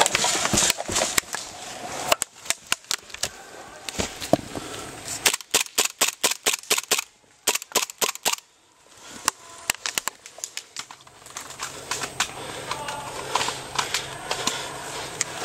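Two Tokyo Marui Sig P226 gas blowback airsoft pistols firing in quick strings of sharp shots, several a second, with a pause of about a second and a half midway before a few more shots.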